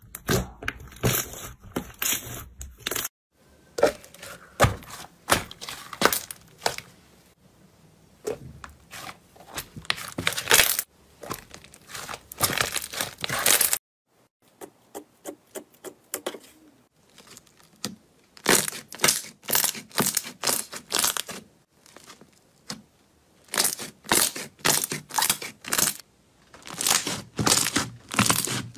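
Slime being squished, pressed and stretched by hand, making dense runs of sticky pops, clicks and crackles with short pauses between them. Several slimes are worked in turn, from a glossy blue one to a clear red one to a pink fluffy one, and the sound changes abruptly at each switch.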